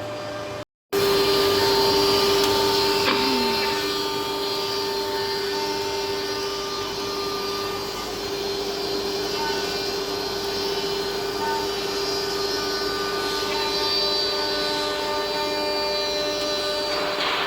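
Rotary CNC router spindle running steadily at high speed as it cuts, a constant whine over a rushing noise, after a brief dropout about a second in.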